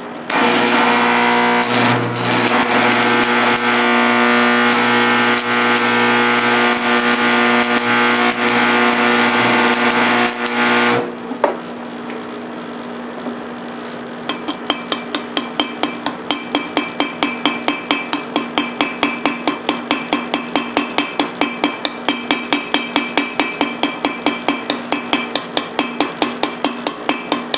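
Arc welding with a nickel rod on an engine piston: a steady crackling buzz with a hum under it for about ten seconds, then it stops. After a short pause comes rapid peening of the fresh weld, about five light metal-on-metal taps a second.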